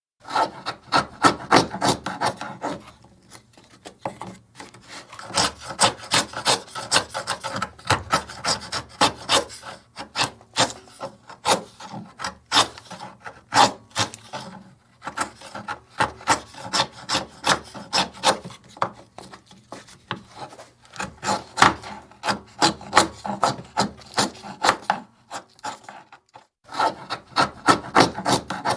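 Wood being carved by hand with a chisel: quick, repeated scraping cuts in bursts of rapid strokes, broken by short pauses.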